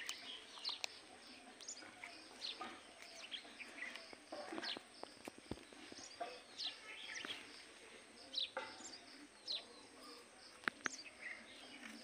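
Birds chirping: many short, high chirps at irregular intervals, with a few sharp clicks.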